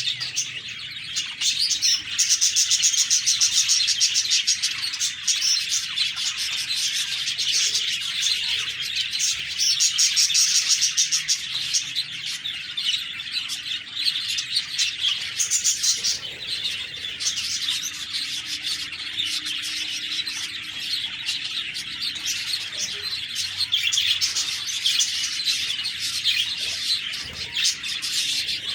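Several budgerigars (budgies) chirping and warbling continuously, with louder high trilling bursts a couple of seconds in and again about ten seconds in.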